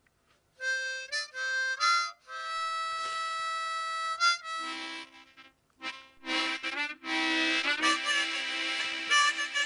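Background harmonica music: a few short notes about half a second in, then longer held chords.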